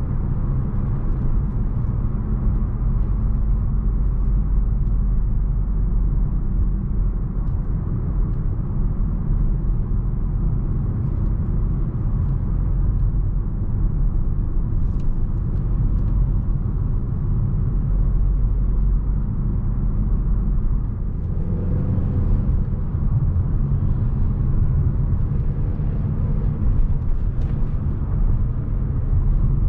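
Mercedes-Benz GLA250's turbocharged 2.0-litre four-cylinder petrol engine running under way, mixed with tyre and road noise as a steady low rumble. A brief change in the engine note comes a little past two-thirds through, and a few faint clicks can be heard.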